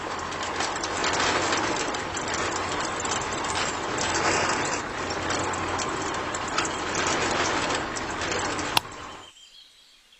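Small electric motor and gearing of a DIY model tractor running, a steady whir with rapid clicking and a low hum, which stops with a click about nine seconds in.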